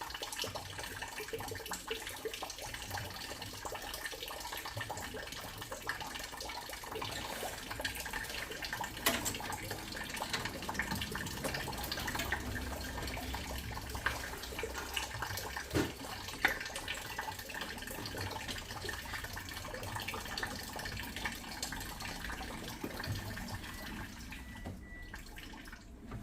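Water running steadily, with a few sharp clicks and knocks over it.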